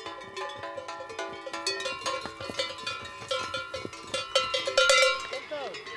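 Many livestock bells worn by a moving herd of mares and foals, clanking irregularly at several different pitches, densest and loudest about four to five seconds in.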